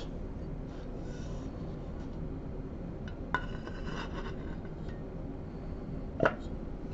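Parts of a Bausch & Lomb Stereozoom 7 microscope clicking and clinking as they are handled and set back into the mount: a sharp click about a third of the way in, a short run of light rattles after it, and a knock near the end.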